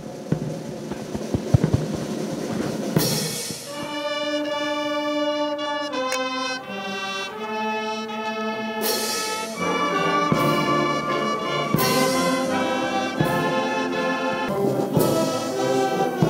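Brass band playing slow, held chords that step from note to note, coming in about three seconds in after a stretch of noisy background with a few sharp knocks.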